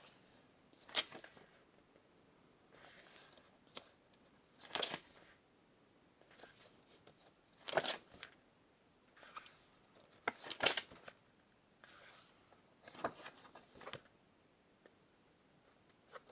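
Glossy paper pages of a photo booklet being turned by hand, one after another. Each turn is a short papery swish or flap, about ten of them at uneven intervals of one to two seconds.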